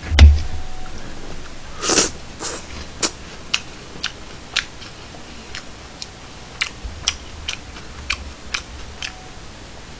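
Close-miked eating sounds: a thump right at the start, then a dozen or so scattered short sharp clicks and smacks from chewing and from a fork and spoon on dishes.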